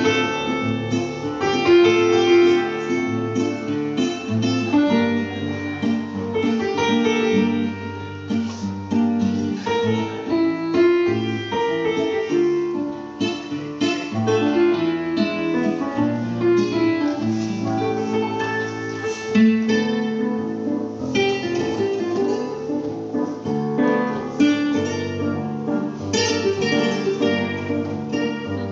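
Music led by plucked and strummed acoustic guitar.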